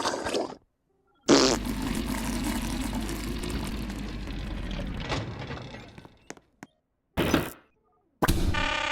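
Tubby Custard machine malfunction sound effects. A sudden loud spluttering burst fades away over about five seconds, and a short second burst follows after a gap of silence. Near the end a steady, even-pitched machine hum starts.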